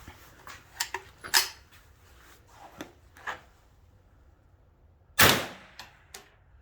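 Several small clicks and knocks of a .22 rifle being loaded and handled, then a single .22 LR shot from its 16-inch barrel about five seconds in, the loudest sound.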